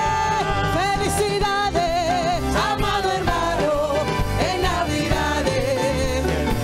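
Live worship band playing a praise song with a woman singing the lead into a microphone, her held notes wavering, over a steady beat from keyboard, guitar and drums.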